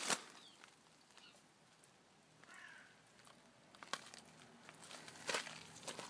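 Quiet outdoors: a few scattered crunches and clicks, the loudest near the start and in the last second, with faint bird chirps in the background.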